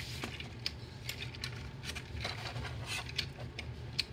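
Plastic parts of a Transformers Age of Extinction Voyager Class Galvatron figure clicking and rattling as they are folded by hand during transformation: a scatter of small sharp clicks over a faint steady low hum.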